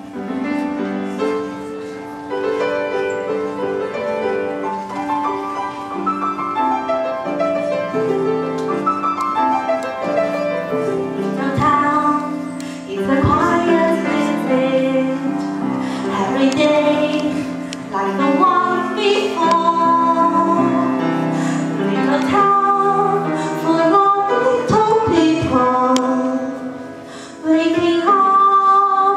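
A girl singing a show tune into a handheld microphone over piano-led backing music.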